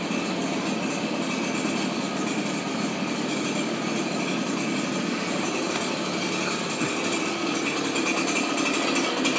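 Petrol backpack leaf blower engine idling steadily, freshly started and not yet throttled up.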